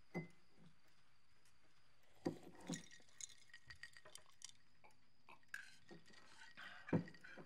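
Quiet dinner-table sounds: a drinking glass clinking and knocking, with small clicks of cutlery on plates. The loudest knock comes near the end.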